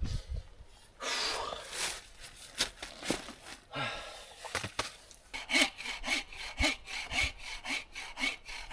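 Hand saw cutting through wood, scraping at first, then settling into steady back-and-forth strokes about two a second from about halfway through.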